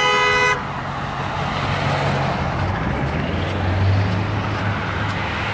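A car horn held steady, cutting off about half a second in, followed by road traffic passing: engine hum and tyre noise that swell to a peak around four seconds and then ease off.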